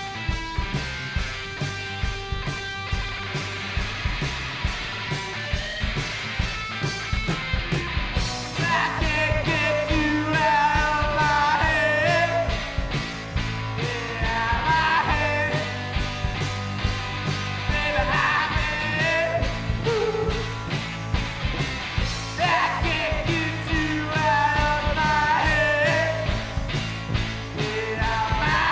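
Live rock and roll band playing: electric guitar, electric bass and a drum kit keeping a steady beat. A young man's lead vocal comes in about eight seconds in and carries on over the band.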